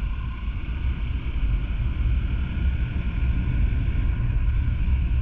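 Motorcycle riding along a road, heard from an action camera on the bike: a steady low wind rumble on the microphone over the engine and road noise.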